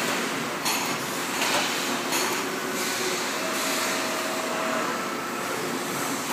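Robotic spot-welding machinery running, a steady industrial noise with several short bursts of sharper noise in the first three seconds and a faint whine in the middle.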